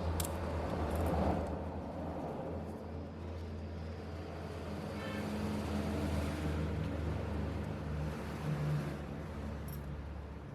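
A steady low motor hum with a hiss above it, and a small sharp click near the start and another near the end.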